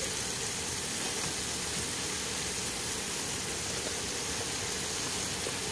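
Squash curry simmering in a pan on the stove: a steady, even sizzling hiss.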